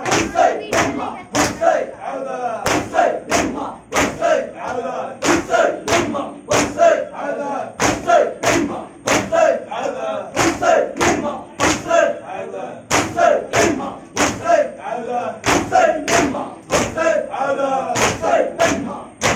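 A crowd of men chanting a mourning lament in unison while beating their chests with their hands in matam. The strikes fall as a steady, sharp beat, about two a second, under the chanting.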